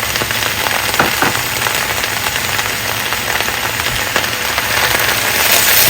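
Choy sum and sauce sizzling hard in a wok on high heat, a steady hiss with scattered crackles and a few sharp clicks. The sizzle swells louder near the end.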